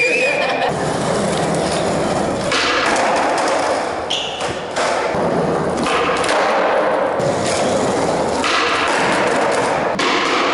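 Skateboard wheels rolling on a concrete floor, with the thuds of the board popping and landing during flatground tricks.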